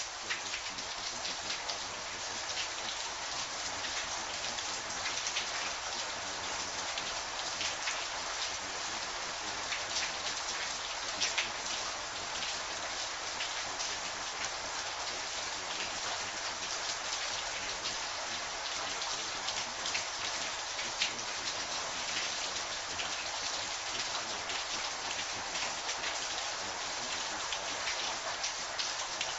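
Steady rain falling: an even hiss with many sharp drop ticks.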